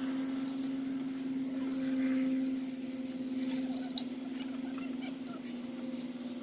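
Dry kindling rustling and crackling as it is handled in a steel fire bowl, with one sharp click about four seconds in. A steady low mechanical hum runs underneath throughout.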